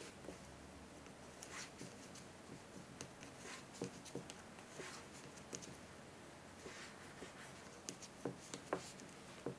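Hand knitting with wooden knitting needles and wool yarn: faint, irregular clicks and scratchy rubbing as the needle tips slide into stitches and draw the yarn through.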